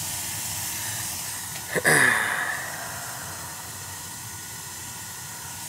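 A short spray of leak-detector solution about two seconds in, onto the gas valve's pipe fittings, over a steady hiss.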